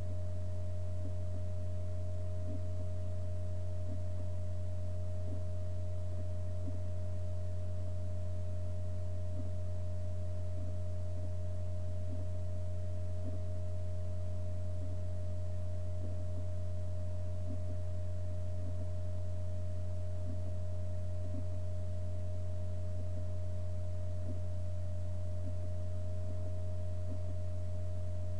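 A steady low hum with a few fainter, higher steady tones above it, unchanging throughout.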